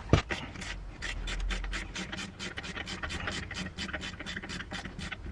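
Worm-drive hose clamp on a fuel line being loosened with a 5 mm driver: a rapid, even rasping, about six strokes a second.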